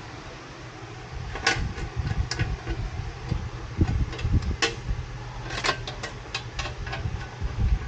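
Scattered light clicks and taps as the bolts of a wheel bearing hub and its splash shield are handled and started by hand, with a quick cluster of them near the end, over a steady low hum.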